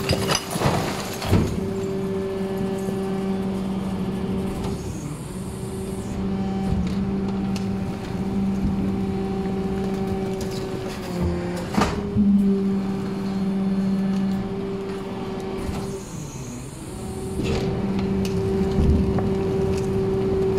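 Rear-loader garbage truck's compactor running: a steady hydraulic hum from the raised engine and pump, dipping briefly three times as the packer cycle changes stage. Sharp cracks and crunches come from waste being crushed, the loudest near the middle.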